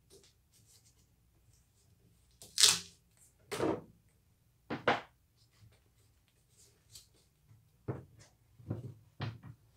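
Strips of tape pulled off a roll and torn in a few short rips, the loudest about two and a half seconds in.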